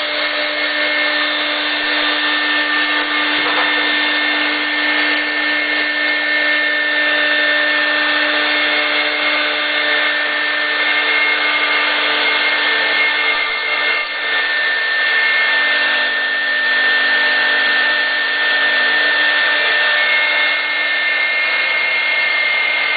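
CNC router spindle whining steadily at speed as its bit cuts a groove along the edge of a wood panel, over a dense steady hiss from the cut and from an air hose blowing chips away from the bit.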